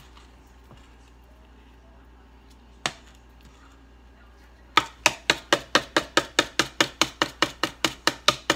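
A spatula being rapped against the rim of a mixing bowl to knock the cake batter off it: one knock about three seconds in, then a fast, even run of sharp taps, about five a second, from about five seconds in.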